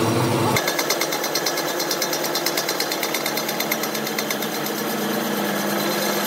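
A power tool running with a fast, even rattle of repeated strokes, several a second.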